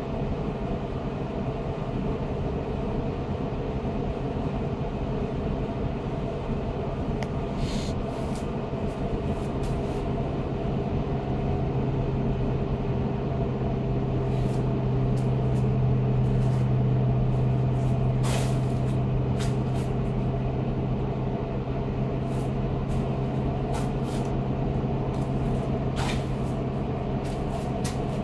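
Blower door fan running steadily while it depressurizes the house for an airtightness test: a continuous low hum with a few steady tones. The hum grows a little louder about halfway through as the fan is adjusted toward the 55 Pa target pressure, and a few light clicks stand out.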